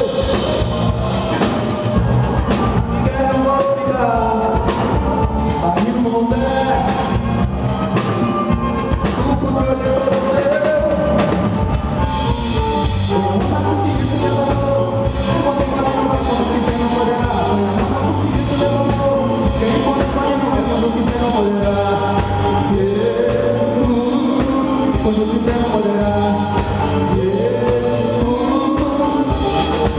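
Live band music played through a PA, with drum kit, acoustic guitar and electric guitar keeping a steady beat under a moving melodic line.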